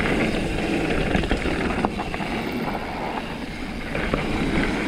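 Mountain bike rolling along a dirt trail: a steady rush of wind on the microphone and tyre noise with a low rumble, broken by a few short clicks and knocks from the bike.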